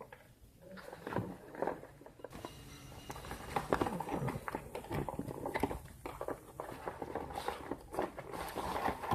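A parcel's packaging being opened by hand: irregular rustling and crinkling with small clicks, busier from about two seconds in.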